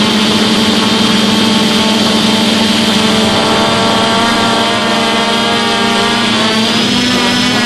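DJI F450 Flame Wheel quadcopter's brushless motors and propellers in flight, heard from on board the frame: a loud, steady buzzing hum whose pitch wavers slightly near the end as the motors adjust.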